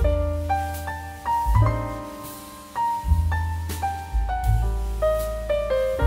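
Background music: a melody of short pitched notes over a deep bass line, the bass notes coming in about every one and a half seconds.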